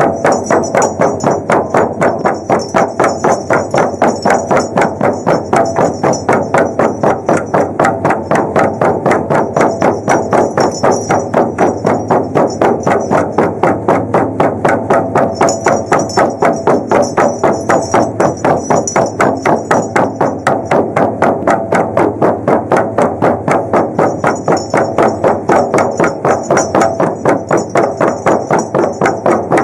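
Shamanic frame drums (buben) beaten together in a steady, fast, even rhythm.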